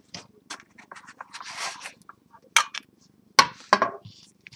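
Scraping and rustling as a watch is worked out of the foam insert of its metal tin. A few sharp clicks and knocks come as it is handled, the loudest about three and a half seconds in.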